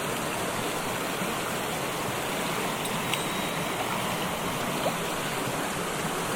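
River water rushing steadily, a continuous even rush of current.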